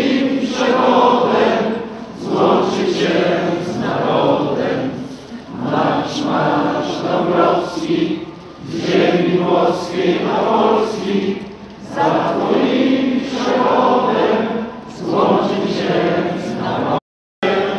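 A large crowd of protesters chanting in unison, the phrase repeated about every three seconds. The sound cuts out briefly near the end.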